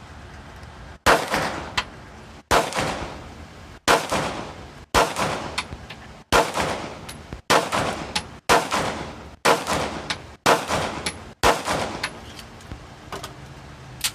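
A string of ten gunshots at a steady pace, roughly one a second, each followed under a second later by a fainter short sharp crack, with a few small clicks after the last shot.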